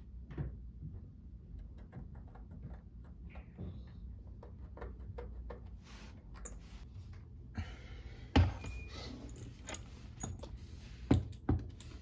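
Small clicks and taps of a metal door-stop mounting plate and a pencil being handled against a wooden baseboard, with a few sharp knocks in the second half.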